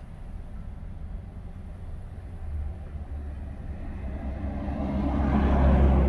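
A vehicle driving past on a snow-covered road. Its tyre and engine noise swells to a peak near the end and then begins to fade, over a steady low rumble of wind on the microphone.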